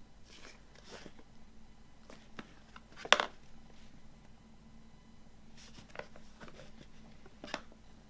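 Hands handling the packaging of a movie box set: soft rustling swishes and a few sharp clicks and taps. The loudest click comes about three seconds in.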